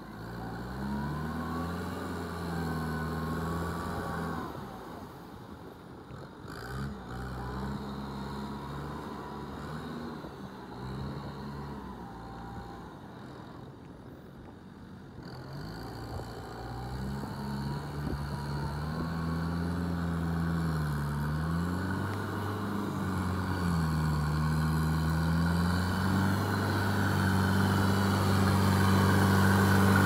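Kubota farm tractor's diesel engine working under load as it drags a rotary tiller through flooded paddy mud. The engine pitch rises and falls several times, and it grows louder toward the end as the tractor comes close.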